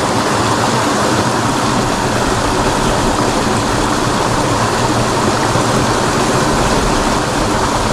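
Water of a small ditch running steadily, an even, continuous rushing noise.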